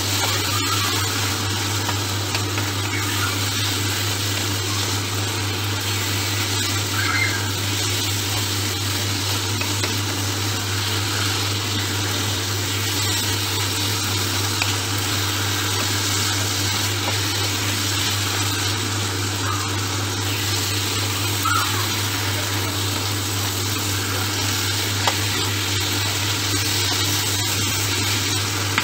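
Minced beef sizzling steadily in a hot frying pan, stirred with a wooden spoon, over a steady low hum.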